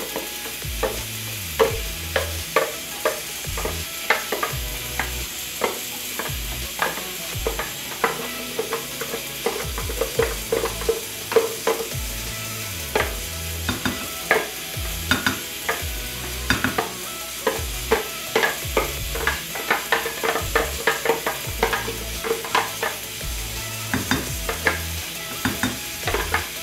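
Spatula scraping thick blended cream out of a plastic blender jar into a glass bowl: irregular taps and scrapes of the spatula against the jar, sometimes several a second.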